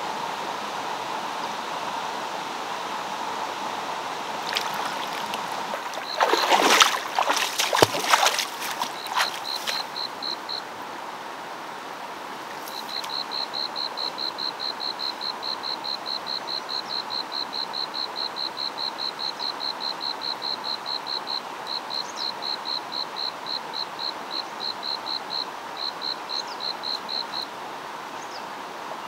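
Stream water running steadily. About five seconds in comes a burst of loud sharp knocks, then a high, evenly pulsed chirping at about five chirps a second that runs on with brief gaps.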